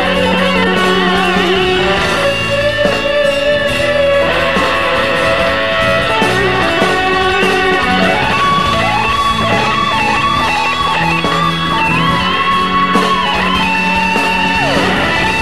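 Live rock band playing, led by an electric guitar with long held and bent notes over bass and drums.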